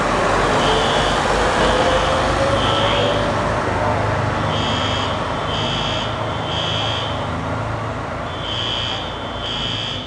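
Fire engine's diesel engine pulling away and accelerating, its pitch rising over the first few seconds and the sound easing off as it moves down the street. Over it, a high electronic beep sounds in short pulses roughly once a second.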